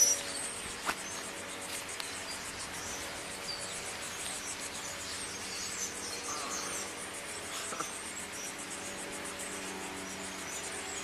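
Insects chirping steadily, with a sharp click at the very start and another about a second in.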